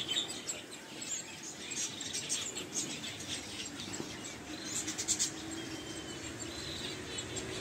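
Small aviary birds such as finches chirping and twittering, many short high calls scattered irregularly, over a faint steady low hum.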